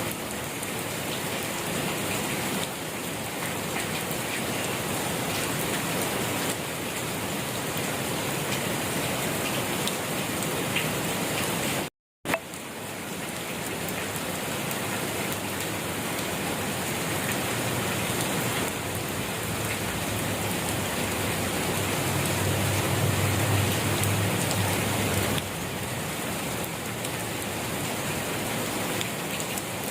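Steady rain falling on surfaces, an even hiss of drops. It cuts out completely for a split second about twelve seconds in, and a low rumble rises under the rain a little past the middle and fades again.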